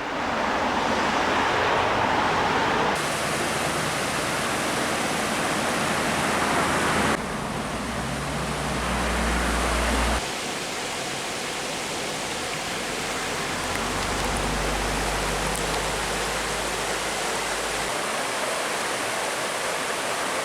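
Mountain creek water rushing over rocks, a steady rush that changes abruptly a few times as shots cut, with a low rumble at times.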